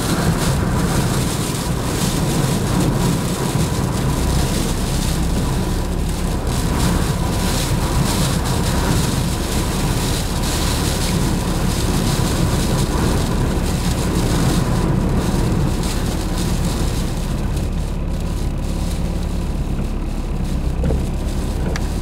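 Blizzard wind blowing hard and without let-up, storm gusts of 120–130 km/h, with a heavy low rumble of wind buffeting the microphone.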